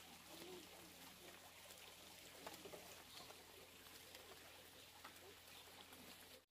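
Faint pecking and leaf-tearing from a flock of Muscovy ducks feeding on fresh-cut greens: many small clicks and rustles, with a few soft low calls.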